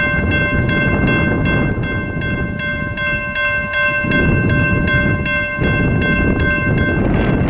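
Railroad grade-crossing bell ringing steadily, about two to three strokes a second, over a low rumble.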